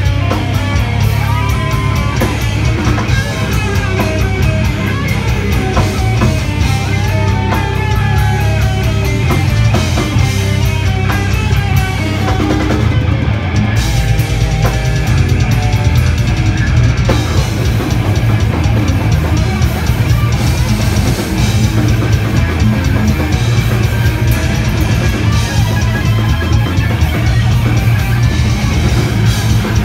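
Metal band playing live and loud: distorted electric guitars over a drum kit with heavy bass drum. The band shifts into a new section about halfway through.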